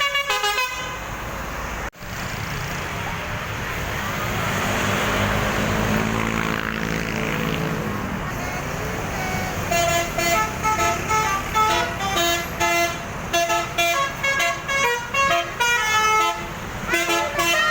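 Basuri telolet bus horn, a multi-trumpet air horn, playing a tune of short, quick notes. The tune breaks off just after the start, and a passing vehicle's engine and road noise fill the next several seconds. The horn starts up again about ten seconds in.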